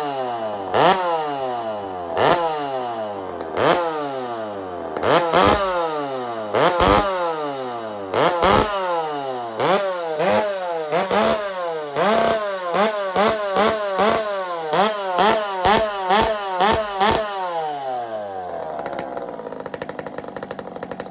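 Loud two-stroke chainsaw with an aftermarket tin-can muffler, its throttle blipped again and again: each rev climbs sharply and winds down, about every second and a half at first, then in quicker, shorter blips. It settles to a steady idle for the last few seconds.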